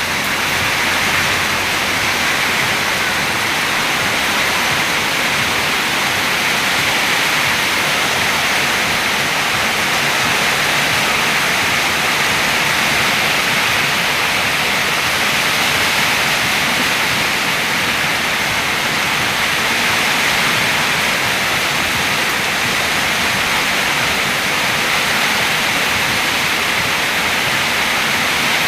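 Heavy rain falling in a steady downpour: an even, unbroken hiss of rain.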